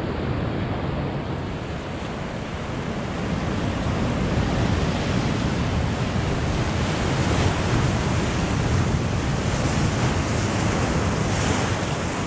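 Ocean surf breaking and washing over rocks, a continuous rushing that swells about a third of the way in, with a wave crashing close by near the end.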